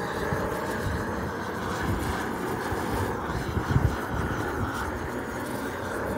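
Gas burner torch running with a steady roar while charring the surface of wooden boards, with a short low thump a little past the middle.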